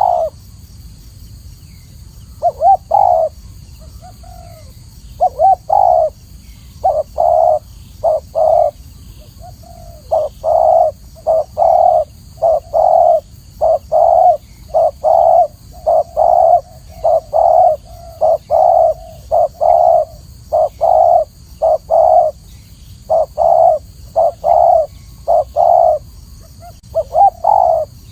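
Spotted dove cooing over and over in short phrases of several quick notes, with brief pauses between phrases.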